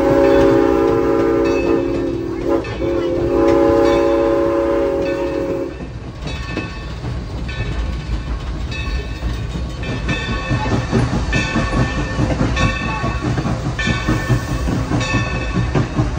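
Valley Railroad No. 3025, a 2-8-2 steam locomotive, sounding its chime whistle: one long blast with a brief break about 2.7 s in, then a second blast that stops about 6 s in. After that the engine's running and wheel-on-rail noise goes on, with a bell ringing repeatedly.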